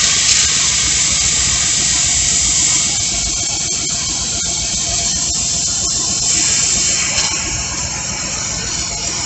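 Air hissing steadily out of a truck tire through the release button on an air compressor's hose gauge, deflating the tire from about 60 psi; the hiss eases a little about two-thirds through. The truck's engine idles low underneath.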